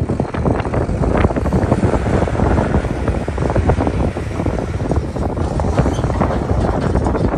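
Volvo A30F articulated dump truck's diesel engine running as the truck drives away, with strong wind buffeting on the microphone.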